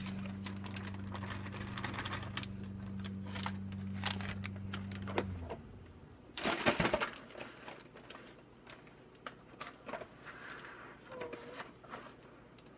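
Crinkling and rustling of a paper bag of powdered sugar being handled, with many small crackles, over a steady low hum that stops about five seconds in. A louder rustle about halfway, then faint scattered clicks of stirring in a plastic bowl.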